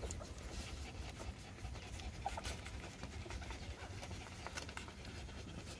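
Newborn puppies nursing from their mother: small suckling clicks and rustling against the fur and bedding, with one brief faint squeak about two seconds in.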